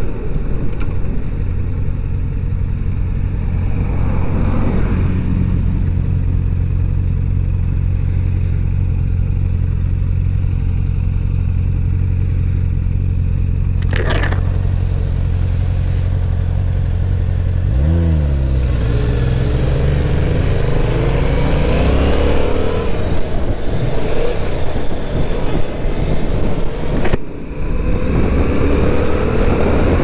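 Motorcycle engine heard from the rider's seat, cruising at a steady engine speed. About halfway through there is a single sharp click. Then the engine revs up sharply and accelerates, its pitch rising and falling through the gears, with a brief drop for a gear change near the end.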